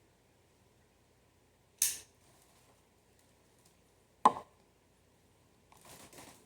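Handling of a tobacco pipe and its tools: a sharp click about two seconds in, a louder knock a little past four seconds, then a brief scraping near the end.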